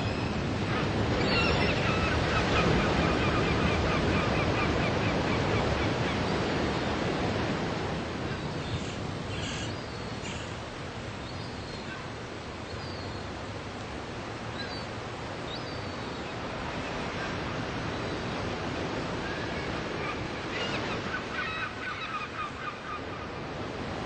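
Ocean surf breaking and washing up a sandy beach as a steady rush of water noise, louder over the first several seconds, easing through the middle and building again near the end. A rapid series of short, high calls sounds about a second in and again near the end.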